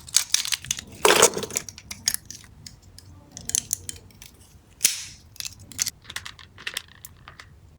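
Small items being handled during an unboxing: a scattered run of sharp clicks and snaps, with two short rustling bursts about a second in and about five seconds in.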